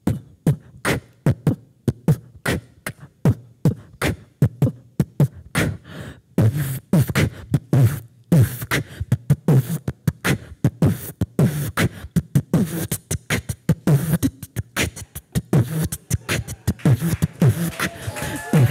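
A woman beatboxing with a microphone cupped to her mouth: a fast, steady rhythm of sharp percussive mouth sounds that grows busier, with more hissing strokes, from about six seconds in.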